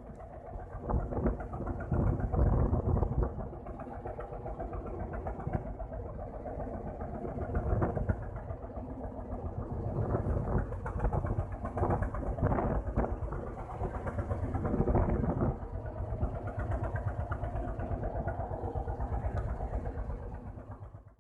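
Small boat's engine running steadily, with a fast even pulsing and a held tone, rising and falling a little in level.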